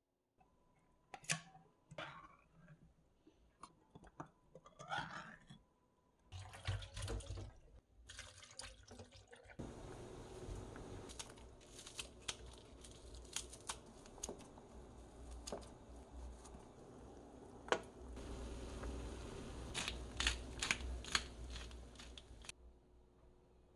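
A metal can of cockles being handled and opened, with clicks and scraping metal. About ten seconds in, a pot of ox-knee soup bubbles at a steady boil, with several sharp snips of scissors cutting frozen green onion into it.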